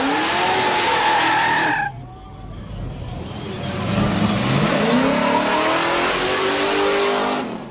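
Car doing a burnout: the engine revs high while the tyres squeal and skid, in two loud stretches; the engine pitch climbs through the second, and each stretch cuts off suddenly.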